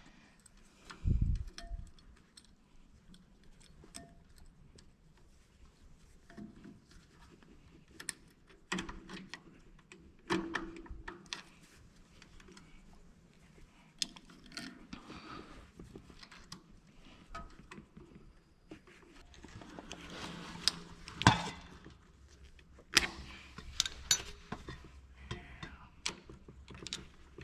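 Hand tools clinking, scraping and knocking against the metal of a tractor starter as a stubborn fastener is worked on. The sounds come in scattered clicks and knocks with quiet gaps between, and there is a duller thump about a second in.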